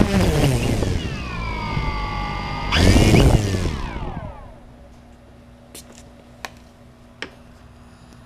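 DJI Phantom 2 quadcopter's motors and propellers spinning down after landing: a whine falling in pitch, a brief burst of throttle about three seconds in, then the rotors stop about four seconds in. A few faint clicks follow.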